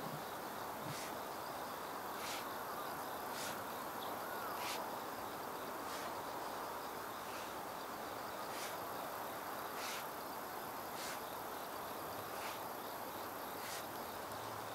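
Steel hoe blade scraping through loose soil in short, regular strokes, about one a second with a pause in the middle, while earth is drawn up into a ridge. Insects chirp steadily throughout.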